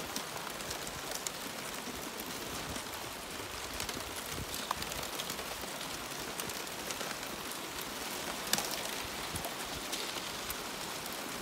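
Broken sheets of thin new sea ice tinkling and clinking as the floating plates are shuffled against each other: a dense, steady patter of tiny high clicks, with one sharper click about eight and a half seconds in.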